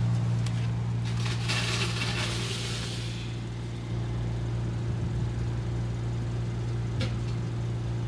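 Ice vending machine working through its vend cycle after payment: a steady low machine hum, with a rushing, rattling noise from about 1.5 to 3 seconds in and a few sharp clicks.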